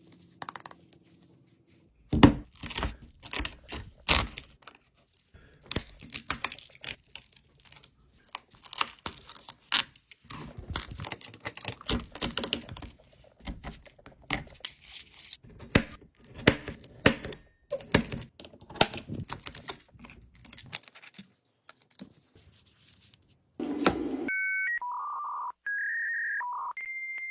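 Irregular clicks, taps and crinkling, tearing noises of hands and tools working on an iPhone, with film or adhesive being peeled. About 24 seconds in, these give way to a run of electronic beeping tones that step between a few pitches.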